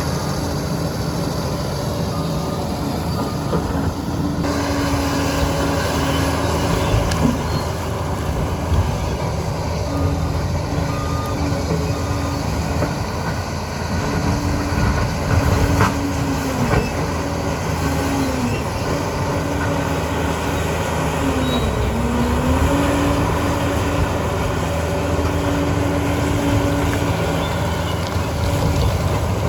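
Liebherr PR 746 crawler dozer's diesel engine running steadily at work, its pitch dipping briefly twice and recovering.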